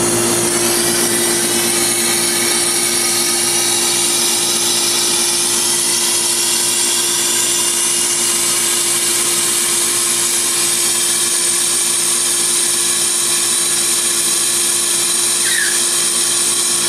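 Nitrogen from a regulated cylinder hissing steadily as it is blown through an air-conditioning condenser coil to push out Rx11 flush solvent, over a steady mechanical hum.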